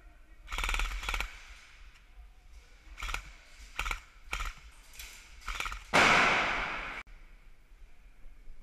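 Airsoft rifles firing full-auto bursts of rapid ticks in a large hall: one long burst about half a second in, then several short bursts. About six seconds in comes a louder, noisier burst, the loudest sound here, which dies away over about a second.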